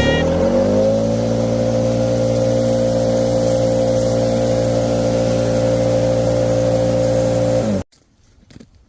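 Mini skid steer engine revving up in the first second, then running steadily at high speed. It cuts off suddenly near the end.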